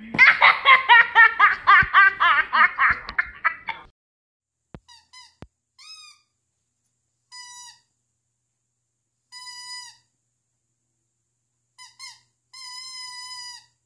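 A young child giggling in a quick run of laughs for about four seconds. Then a dog whining in short high-pitched whimpers spaced a second or two apart, with a longer whine near the end.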